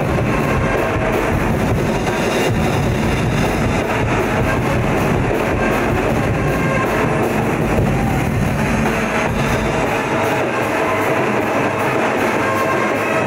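Loud dance music with drums playing over an arena's loudspeaker system; the deepest bass drops away about ten seconds in.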